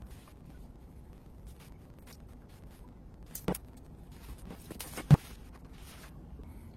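Hands working on an iMac during reassembly: soft scraping and light clicks, with a sharper knock about three and a half seconds in and a louder one about five seconds in.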